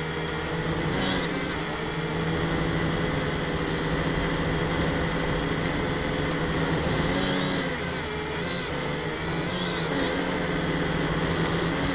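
F183DH toy quadcopter's motors and propellers whining steadily, heard close up from the drone's own onboard camera. The pitch dips and rises again about a second in, around seven to eight seconds in and near ten seconds as the throttle is worked.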